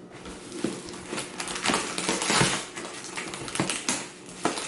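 Puzzle packaging being handled: irregular clicks, taps and scraping of plastic boxes and packing material.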